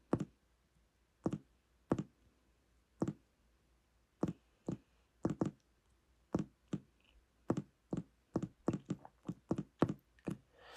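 Phone keyboard key-tap clicks, one per character as a number is typed in. About two dozen short, sharp clicks come at uneven intervals, sparse at first and quicker in the second half.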